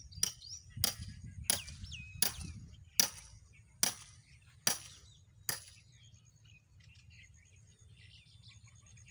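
Firewood being chopped with an axe: eight sharp blows about every three-quarters of a second, stopping about five and a half seconds in. Birds chirp over a low steady rumble.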